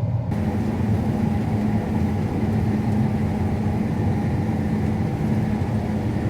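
Combine harvester running at a steady drone, with a steady low hum and no change in speed.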